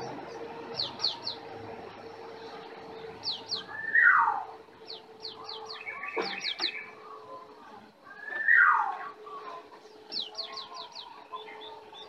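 Songbirds chirping and calling: quick groups of three or four short, high, falling chirps come again and again, and twice a louder call swoops down in pitch. A brief rattle sounds about six seconds in, over a faint steady hum.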